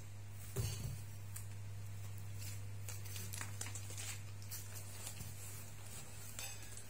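Faint, scattered small clicks and rustles over a steady low hum.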